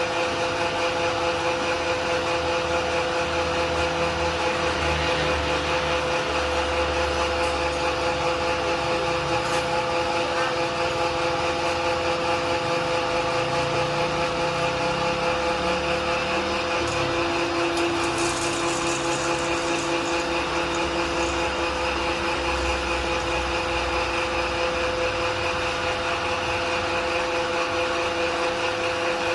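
5.5 hp electric animal-feed pellet mill running steadily, a constant motor hum and whine with an uneven low rumble underneath.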